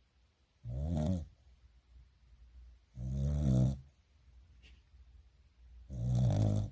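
Dog snoring: three snores about two and a half seconds apart, each lasting under a second.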